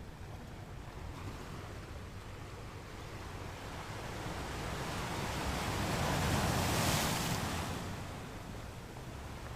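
Ocean waves on a shore: a steady wash of surf swells as one wave breaks into a loud hiss about two-thirds of the way through, then falls back.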